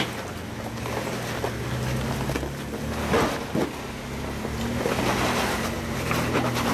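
Jeep Wrangler Unlimited Rubicon engine running low and steady as the Jeep crawls over rocks. Scattered sharp knocks and crunches, the loudest about three seconds in.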